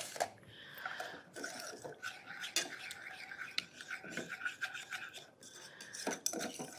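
A small wire whisk swishing and scraping against the bottom and sides of a metal saucepan, blending apple juice into sugar and cornstarch, with small clicks of the wires on the pan.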